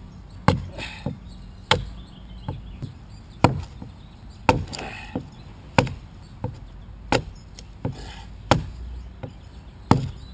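Steel adze blade chopping into the wood of a log being hewn into a dugout canoe, a sharp blow roughly every second, evening out the side of the hull.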